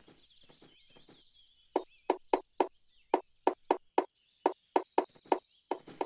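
Cartoon sound effect of a white-bellied woodpecker pecking a tree trunk: quick, even wooden knocks, about four or five a second, starting about two seconds in and broken by a short pause near the middle. Faint birdsong chirps behind.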